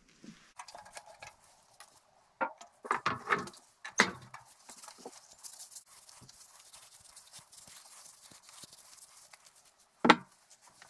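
Metal vice parts knocking a few times on a wooden workbench, then a solvent-soaked rag rubbing over the metal to degrease it, and one loud knock near the end as the vice body is moved.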